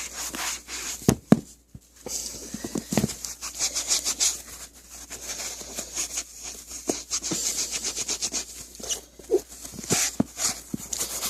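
Magic eraser (melamine foam) scrubbing a sneaker's sole in quick back-and-forth strokes, a rapid rhythmic rubbing with a hiss, with a couple of sharp knocks about a second in.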